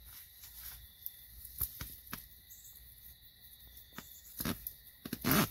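Faint steady insect trilling in an open field, with scattered soft clicks and a louder rustling bump near the end.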